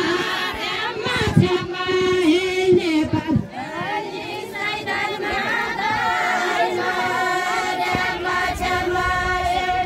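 A group of women singing a Deuda folk song together in long, held notes. A few low thumps come through in the first few seconds.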